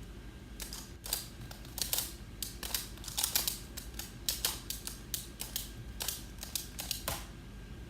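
Plastic Skewb puzzle being turned by hand: a run of quick, uneven clicks as its corners snap through turns.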